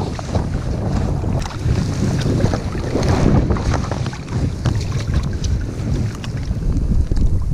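Heavy wind rumbling on the microphone, with water sloshing and splashing around a landing net that holds a sea trout in the shallows. Close rustling of a waterproof jacket sleeve and net as the fish is handled.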